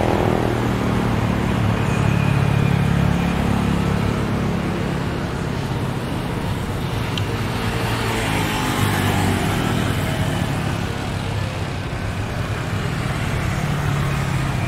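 Jet engines of a twin-engine Airbus A320-family airliner rolling out on the runway after landing: a loud, steady rumble with a low drone, swelling somewhat about halfway through.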